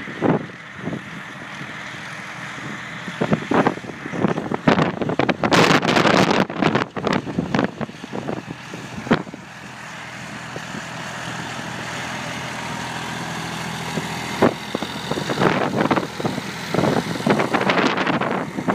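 Massey Ferguson tractor's engine running steadily while pulling a seed drill, growing louder as it comes closer. Gusts of wind buffet the microphone a few seconds in and again near the end.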